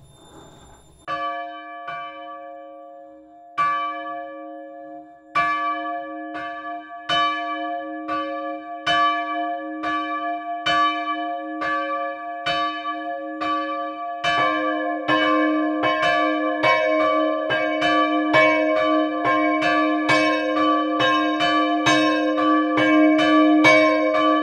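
The two-bell peal of a church belfry, recorded right beside the bells: the 1923 KID Jesenice bell (c'') and the 1928 Strojne tovarne in livarne Ljubljana bell (d''), which sound a semitone apart because they are different bell types. One bell starts swinging about a second in and strikes roughly once a second. About 14 s in, the second bell joins and the two ring together.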